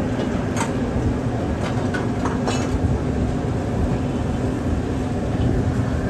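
High-flame gas wok burner running with a steady low rush under a stir-fry wok. A metal ladle clanks against the wok a few times in the first three seconds.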